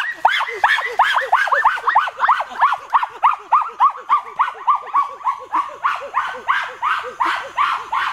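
A fast, even run of high yelping animal calls, about four a second, each call rising and then falling in pitch.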